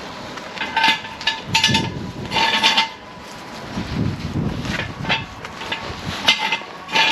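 Short bursts of a power impact wrench on the car's wheel lug nuts, about five bursts with gaps of a second or more, each a brief whine with rattling.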